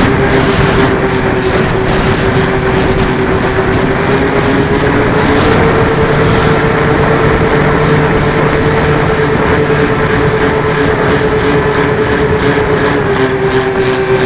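The Sky Mule's motor running with a steady whine that rises a little in pitch about five seconds in and drops back near the end, under a heavy rush of wind noise.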